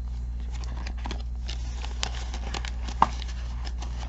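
Paper banknotes and cash envelopes rustling and crinkling as they are handled, with light taps and a sharper click about three seconds in.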